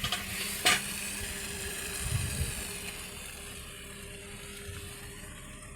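Minced pork and vegetables sizzling as they are stir-fried in a pan, with one sharp clink of the cooking utensil against the pan under a second in, over a faint steady hum.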